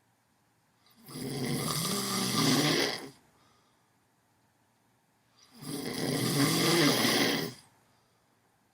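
A sleeper snoring a bit loud: two long snores of about two seconds each, one about a second in and one past the middle, with quiet between them.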